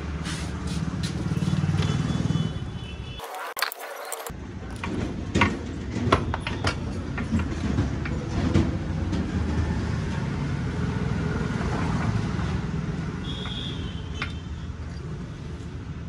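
Scattered metallic clicks and knocks of parts and tools as a motorcycle rear wheel is fitted, over a steady low rumble.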